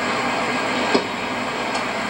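Steady rumbling noise of a moving vehicle, with a single sharp click about a second in.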